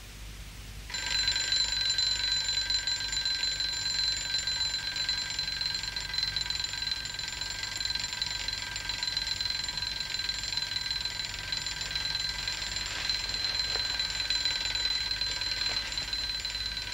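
Alarm clock bell ringing continuously to wake a sleeper, starting suddenly about a second in.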